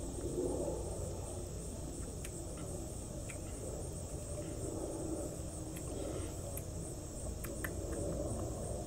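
Steady high-pitched chorus of crickets, over a low rumble of wind on the microphone, with a few faint clicks.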